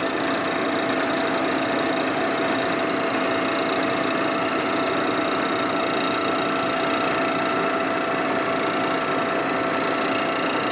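Vertical milling machine running with a fly cutter taking a facing pass across the aluminum gasket face of a Harley panhead cylinder head: a steady whine over a continuous cutting hiss that holds even.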